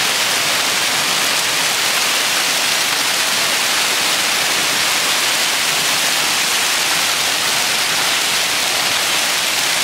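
Hail and heavy rain falling on the street, cars and lawns: a dense, steady hiss with no letup.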